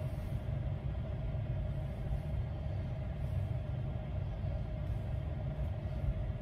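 Steady low rumble with a constant hum inside the cabin of a stationary Tesla Cybertruck.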